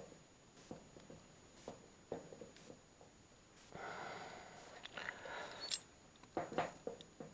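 Faint, scattered light clicks and taps of oven parts being handled during disassembly, with a short breathy hiss about four seconds in.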